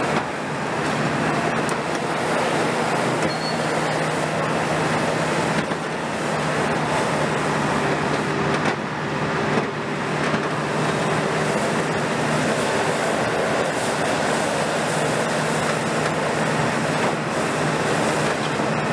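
Diesel engine of a long-front demolition excavator running steadily under load as the hydraulic arm works the steel hall frame, with a few faint knocks scattered through.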